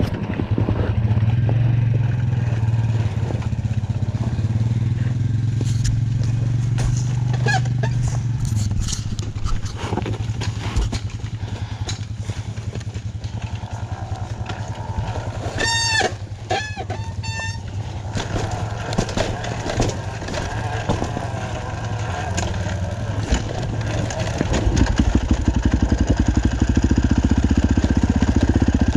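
Honda dirt bike engine running at low revs down a steep rocky trail, with scattered knocks and clatter from rocks and suspension. About halfway there is a short run of high squeaks, and over the last few seconds the engine grows louder.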